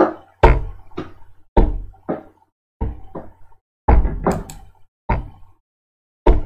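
A series of irregular knocks and thumps, about a dozen sharp hits over six seconds, some with a deep thud, each dying away quickly.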